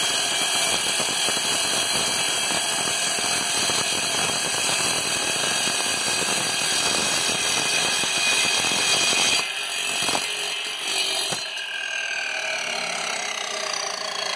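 A chop saw with a large diamond blade grinding through a stone block, water-cooled, making a steady harsh cutting noise. About nine seconds in the cut breaks off, and after about eleven seconds the blade winds down with a falling whine.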